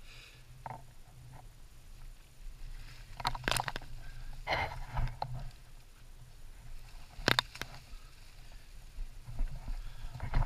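Footsteps and scuffs of a person moving over the rock of a lava tube: scattered knocks and short scrapes, the sharpest about three and seven seconds in, over a low steady hum.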